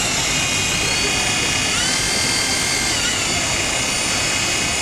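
Mini toy helicopter's small electric motors and coaxial rotors spinning with a high, steady whine. The pitch rises about a second in and again just under two seconds in, then drops back around three seconds in.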